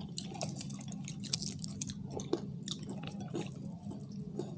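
People chewing and biting fried chicken, with irregular wet smacks and small crunches.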